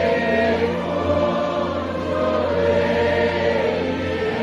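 A large congregation of men and women singing a hymn together, with steady sustained bass notes beneath the voices that move to a new note near the end.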